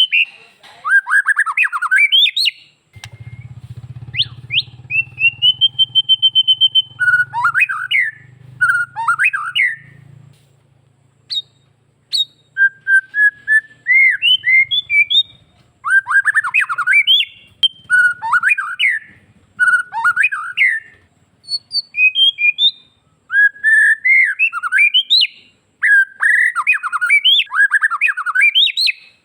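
White-rumped shama (murai batu) singing a loud, varied song of fast rising and falling whistles and chattering notes in quick phrases, with one long held whistle about five seconds in. A low hum runs underneath for the first third.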